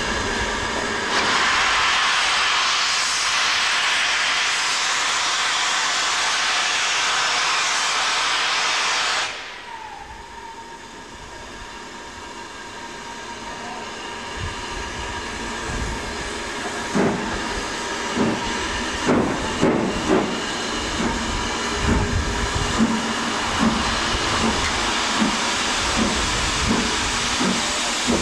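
Steam locomotive: a loud steady hiss of escaping steam that cuts off suddenly about nine seconds in. Then, as the engine starts away with its train, its exhaust beats begin, slow and uneven at first, then settling into a steady rhythm near the end.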